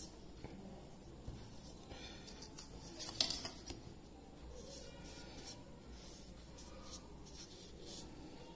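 Clear plastic ruler and set square sliding and tapping on paper as they are nudged into line, with a louder scrape about three seconds in.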